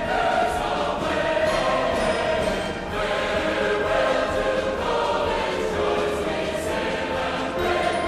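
Hockey goal song playing: loud music with singing voices.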